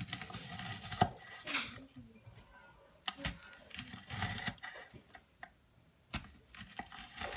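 A kitchen knife slicing through a raw white onion held in the hand, with crisp cutting rasps and the cut pieces dropping onto a wooden cutting board, with a few sharp taps along the way.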